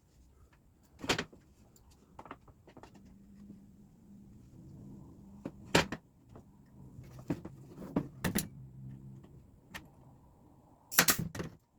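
Scattered sharp clacks and knocks of wooden fence-picket birdhouse parts being handled and fitted together, one about a second in, one near the middle, a quick pair a little later and a loud close cluster near the end, over a faint low hum.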